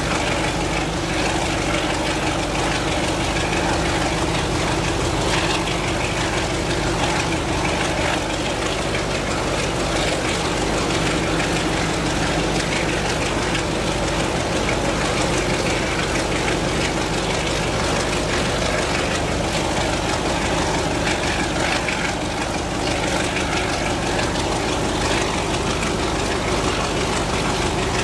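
Diesel locomotive engine running steadily under load, heard from aboard the train it hauls, together with wheel-and-rail running noise. The engine belongs to the heritage pair Class 33 33012 and Class 69 69005.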